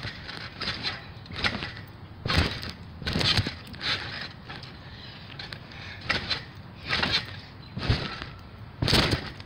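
A person bouncing on a trampoline: thumps of the mat and springs roughly once a second, with a short break in the middle.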